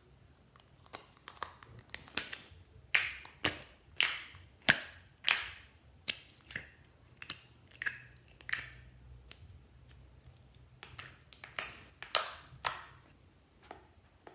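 Slime being squeezed and poked by hand, giving an irregular run of sharp wet clicks and pops, about one or two a second.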